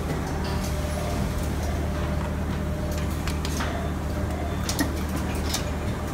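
Steady low hum of a vertical plastic injection moulding machine running, with a few short sharp clicks in the second half as the metal mould block is slid into place under the nozzle.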